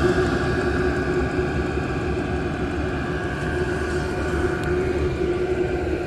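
Diesel air heater running: a steady mechanical whir with a low rumble underneath.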